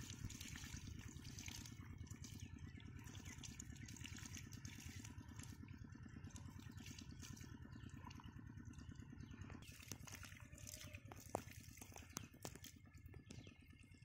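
Faint water trickling and dripping through a shallow muddy channel, over a steady, evenly pulsing low hum like a distant engine. A few sharp little clicks and drips come near the end.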